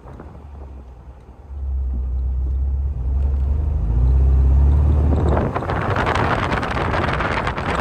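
Moving car: a steady low rumble sets in about a second and a half in and rises a step about four seconds in. Loud wind rushes over the microphone from about five and a half seconds in.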